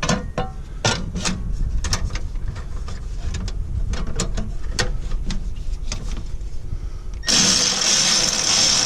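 Light metal clinks and taps of a truck exhaust heat shield being worked into place around an injector line, over a low steady rumble. About seven seconds in, a loud hiss starts and lasts under two seconds.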